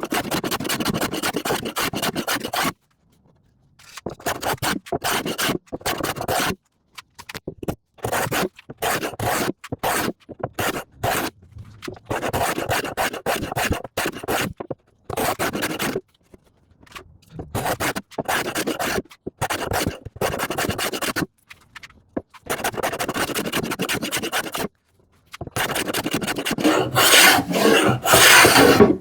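Handmade rabbet (rebate) plane cutting a rebate in ash, taking quick short strokes in runs, with brief pauses between the runs. The last run, near the end, is the loudest.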